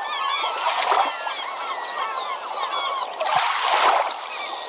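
A flock of birds calling, many short chirping calls overlapping, with two rushes of splash-like noise, the louder about three and a half seconds in.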